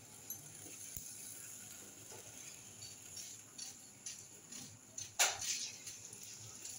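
Faint kitchen handling noises: a few small clicks and knocks of utensils, with one sharper clatter about five seconds in.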